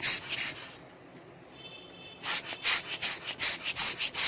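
Quick rubbing strokes, about four a second, as a mechanical watch's gear-train bridge is scrubbed clean of old dried oil with benzine. The strokes pause for about a second and a half near the middle, then start again.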